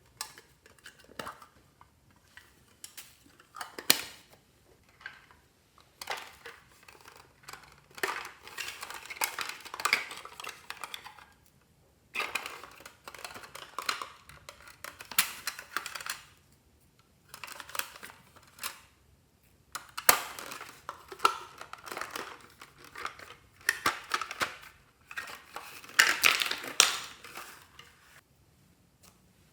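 Slime being mixed and squished, crackling and clicking in bursts of one to a few seconds with short pauses between.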